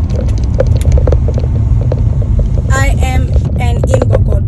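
Steady low rumble of a car cabin on the move, with a short voice about three seconds in.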